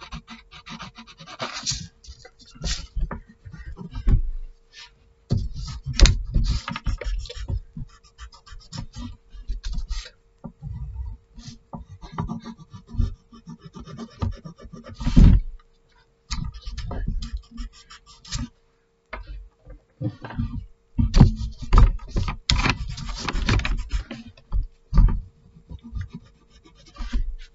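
Pencil sketching on paper: irregular scratchy strokes, with the hand and sheet rubbing and dull knocks against the table as the paper is shifted.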